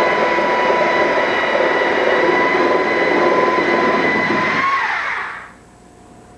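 A motor running with a steady whine, then spinning down with falling pitch and stopping about five seconds in.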